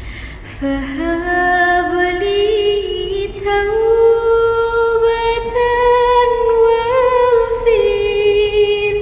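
A boy singing sholawat, an Islamic devotional song of praise, solo with no instruments heard. He draws out long, ornamented notes that climb slowly in pitch, starting a new phrase just under a second in.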